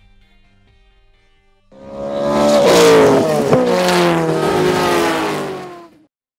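Race car engine at high revs, starting abruptly about two seconds in, its pitch falling as it runs on, with a short dip a little past the middle, then cutting off suddenly near the end. Faint guitar music fades out before it.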